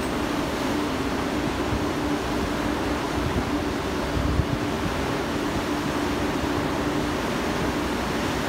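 Steady machinery hum with one constant low drone, over a rush of wind and churning water from the wake of a catamaran pilot boat running alongside a moving cargo ship. There is a short low rumble a little past four seconds.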